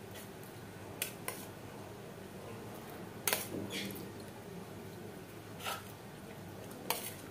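Steel spoon clinking and scraping against a stainless steel bowl while scooping soaked bread in milk: about six short clinks, the loudest a little over three seconds in.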